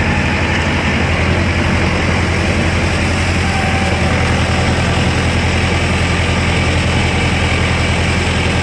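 Mahindra Arjun Novo 605 DI-i tractor's four-cylinder diesel engine running steadily with a deep, even hum, heard close up from the driver's seat.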